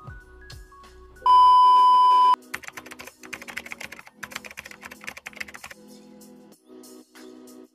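A loud, steady, high beep lasting about a second, followed by about three seconds of rapid keyboard-typing clicks, a typing sound effect, over light background music.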